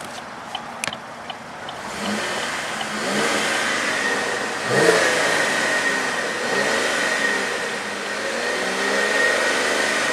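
Holden VF Commodore SV6's 3.6-litre V6 being revved repeatedly from idle, about two seconds in, its pitch rising and falling several times with one sharp blip in the middle. A steady high tone runs under the revs.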